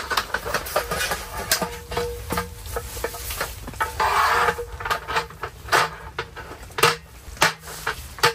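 Irregular clicks, knocks and rustles of camping gear being handled, with a longer rustle about four seconds in.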